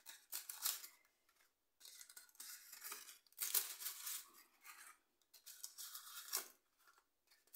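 Crinkly paper packaging being handled, rustling and crinkling in irregular bursts with short pauses between.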